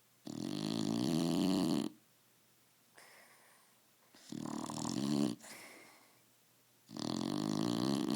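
A sleeping dog snoring: three loud snores about three seconds apart, each lasting a second or more.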